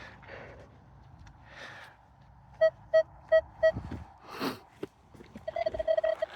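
Minelab Equinox 800 metal detector sounding four short, evenly spaced beeps, then, from about five and a half seconds in, a rapid, continuous stuttering tone at the same pitch. The detector is going absolutely insane. A brief scuffing sound comes just before the steady tone begins.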